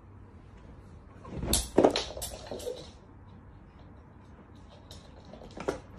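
A quick run of knocks and clatters, loudest about two seconds in, and another knock near the end.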